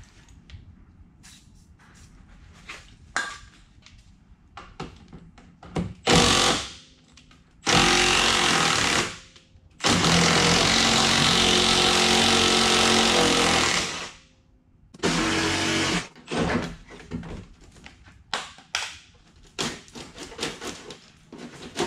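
A power tool run in bursts on the truck's rusted fender sheet metal: a short burst, a run of about two seconds, then a steady run of about four seconds and one more short burst, with knocks and clatter of metal between the runs.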